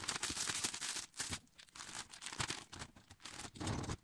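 Clear plastic packaging bag crinkling and rustling as it is handled, in irregular bursts, loudest in the first second and again near the end.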